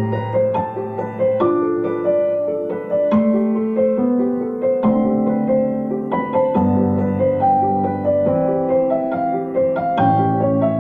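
Background piano music: a flowing melody of single notes over held bass chords that change every second or two.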